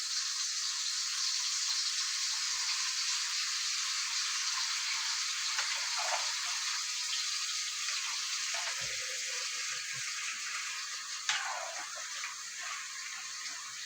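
Steady watery hiss from a pot of soup on the stove, easing slightly toward the end, with a few faint knocks near the middle.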